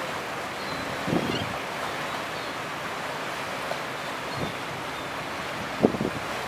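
Steady wash of water and waves along the hull of a large crude oil tanker passing close by, with wind buffeting the microphone in a few short low thumps, the strongest near the end. Faint short high bird calls sound now and then.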